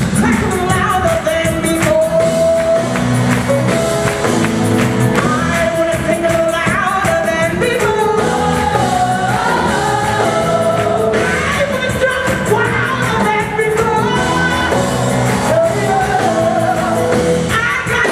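Live gospel song: a woman lead singer with backing singers over a band of drums, bass guitar and keyboards.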